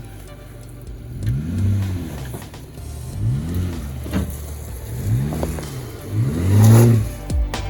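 Jeep Wrangler engine revving up and falling back four times in a row, over a steady low hum, with a louder rush of noise on the last rev near the end.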